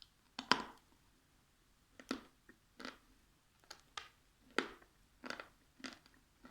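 Close-miked eating: about seven sharp, crisp crunches of someone biting and chewing crunchy food, spaced irregularly about half a second to a second apart.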